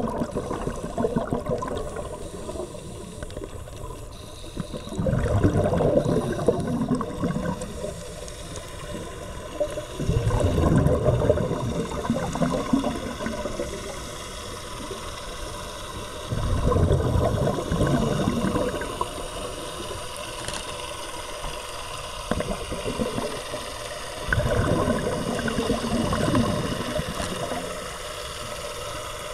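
Scuba divers' exhaled air bubbling out of a regulator underwater, in rushing bursts about two seconds long every five to seven seconds, four full bursts here, with a quieter steady hiss between them.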